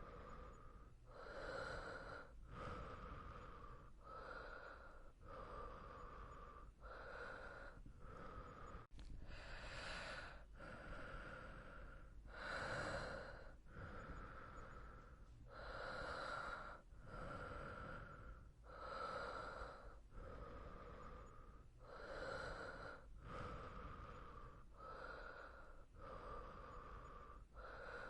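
A person breathing quietly in and out in a steady, even rhythm, a breath sound a little under every second.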